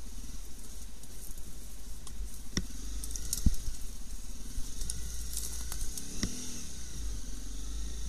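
Motorcycle riding through deep puddles and mud: a steady low rumble under the hissing, crackling spray of water and mud thrown up by the tyres. A few sharp knocks, the loudest about three and a half seconds in.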